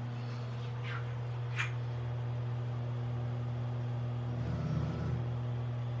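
Fujidenzo top-load washing machine running with a steady electric motor hum, with two faint short hisses about one and one and a half seconds in.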